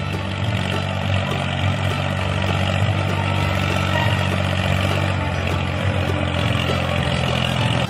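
Tractor engine running steadily with a low, even rumble, the engine sound of a miniature toy tractor driving.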